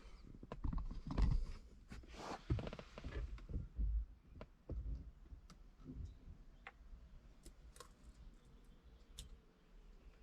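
Stock steering wheel being worked off its steering column by hand: irregular light knocks, clicks and rustling for the first six seconds or so, then a few faint clicks.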